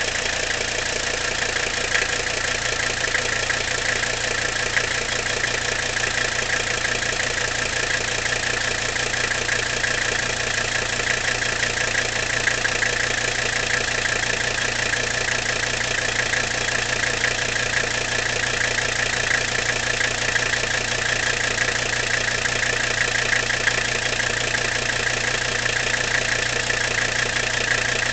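1983 Mercedes-Benz 300D's OM617 five-cylinder turbodiesel idling steadily, still cold after sitting overnight, running on B95 biodiesel.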